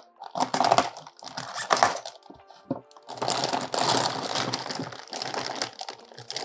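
Plastic fish-shipping bags crinkling and rustling in irregular bursts as they are handled and opened inside a polystyrene shipping box.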